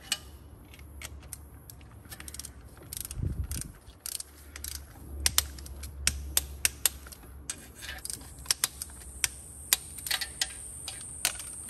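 A hand ratchet wrench clicking in short runs of quick ticks as the exhaust manifold nuts are turned down and torqued, with pauses between strokes.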